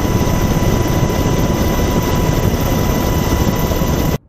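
Helicopter noise heard from on board: a loud, steady rumble of rotor and turbine with a steady high whine over it, cut off suddenly near the end.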